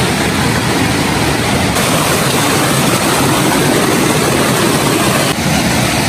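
Loud, steady rush of a small waterfall cascading over rocks into a pool, close to a phone microphone.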